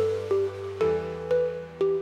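Background music: a gentle melody of notes that start sharply and fade, about two a second, over held bass notes.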